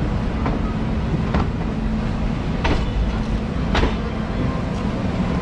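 Amritsar (Lahori) Express passenger coaches rolling along a station platform, heard from beside the coach: a steady low rumble of wheels on rail, with a sharp clack from the rail joints about every second.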